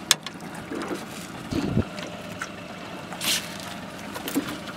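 Ambient noise on a small fishing boat on the water, with wind on the microphone, a sharp click just after the start and a few brief knocks and rustles of handling.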